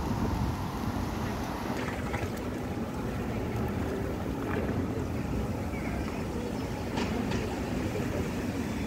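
City-street ambience: a steady low rumble of traffic and wind on the microphone, with faint voices of passers-by and a couple of light clicks about seven seconds in.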